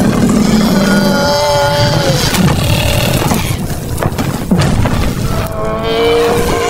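Cartoon soundtrack: music over a steady low rumbling noise, with a wavering pitched sound about a second in and another near the end.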